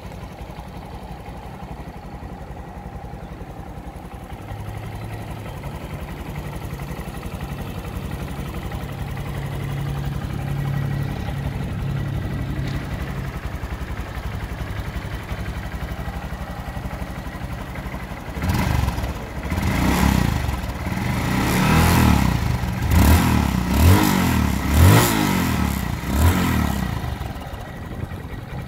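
Honda Monkey 125's 125 cc air-cooled single-cylinder four-stroke engine idling steadily through its stock exhaust. After about 18 seconds it is revved in a quick series of throttle blips, each rising and falling back, before it settles to idle near the end.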